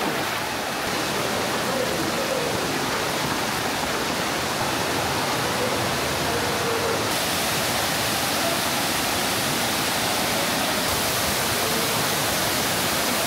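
Waterfall and the rocky stream below it rushing steadily: a constant wash of falling and flowing water, its hiss a little brighter from about seven seconds in.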